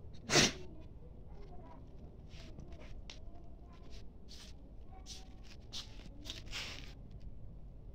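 A single sharp sneeze about half a second in, followed by several faint, short hissing noises.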